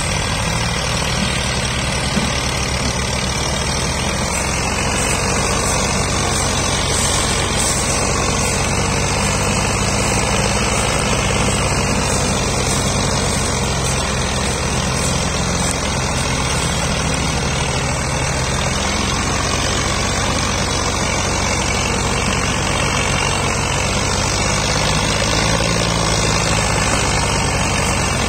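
Massey Ferguson 240 tractor's three-cylinder diesel engine running steadily under heavy load, pulling an overloaded sugarcane trolley.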